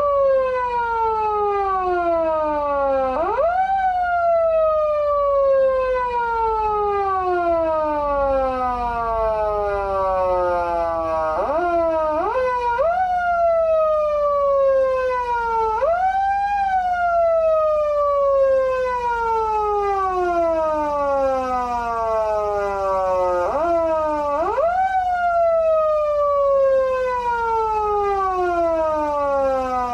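PATLITE SAP-500BK-PV electronic siren amplifier in foot-siren mode: each press of the pedal sends the tone sweeping quickly up, and it then slides slowly back down like a mechanical siren winding down. The pitch is pushed up several times, twice with two or three quick presses in a row.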